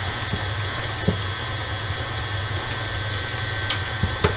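Electric stand mixer running steadily at speed, its motor humming as it beats cheesecake batter of cream cheese, sugar and eggs. A few light knocks come near the end.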